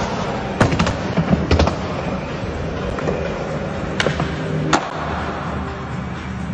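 Skateboard wheels rolling on smooth concrete, with sharp clacks of the board popping, landing and striking a bench: a cluster of cracks in the first two seconds, then two more single cracks around four and five seconds in.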